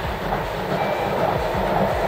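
Ty2-911 steam locomotive and its passenger coaches running past along the track, a steady train noise growing slightly louder.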